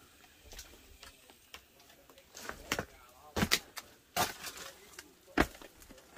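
Footsteps in heavy boots on the old wooden floor and debris: a string of irregular knocks and crunches, with the sharpest knocks about three and a half and five and a half seconds in.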